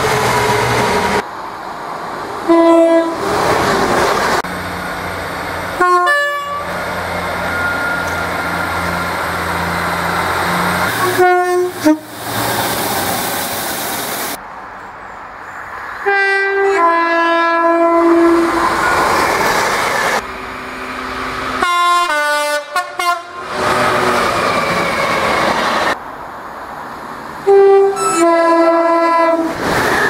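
Trains sounding two-tone horns about six times in turn, each blast a pair of notes with the second lower, from several trains including a GB Railfreight Class 66 diesel locomotive. The noise of trains passing fills the gaps between blasts.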